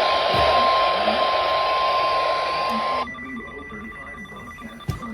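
Weather radio receiver hissing with loud static over a steady tone of about 1050 Hz, the weather-radio alert tone. About three seconds in the static cuts off suddenly, leaving a quieter steady tone and faint pulsing beeps, with a brief thump near the end.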